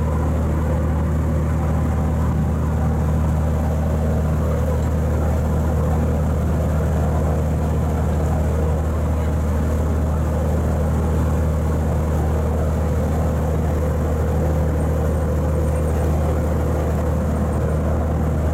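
Sea Bass water bus's engine running with a steady low drone while cruising, with water churning in the propeller wash behind the stern.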